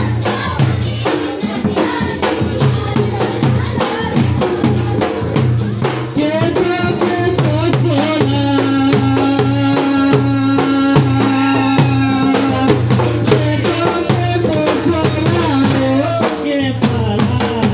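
Live Jhumur folk music: dhol drums beating a fast, steady rhythm over jingling kartal hand cymbals, with a singer's voice that holds one long note in the middle.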